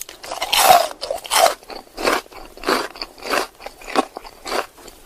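A person chewing popcorn close to the microphone: a crisp crunch with each chew, in a steady rhythm of about three crunches every two seconds.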